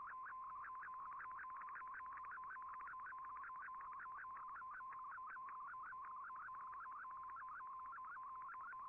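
Shortwave Radiogram digital picture transmission in MFSK image mode, received on 15770 kHz through an Icom IC-R8600. A steady tone near 1 kHz is broken by rapid, evenly repeating rising chirps, several a second, as the image is sent.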